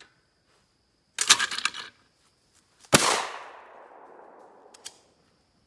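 A single shotgun shot about three seconds in, its report ringing out and slowly fading. A short clattering rattle comes about a second before it.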